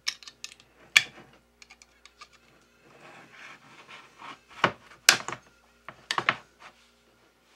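A can of ham being opened by hand, metal on metal: a string of sharp clicks and clanks, loudest about a second in and again around five to six seconds in, with softer scraping between them.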